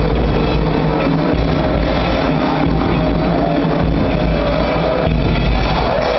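Loud rock music with drums and a strong, steady bass.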